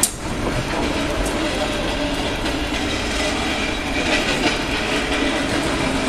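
Concrete mixer pump running: a steady engine rumble with continuous mechanical clatter from the machine.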